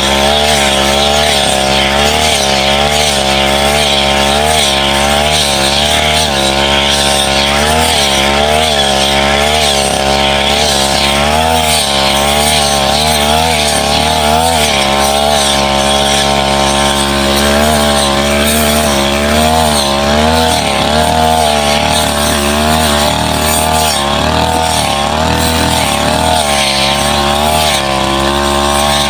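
Petrol brush cutter engine running at high speed, its pitch dipping and recovering over and over as the blade bites into saplings and scrub.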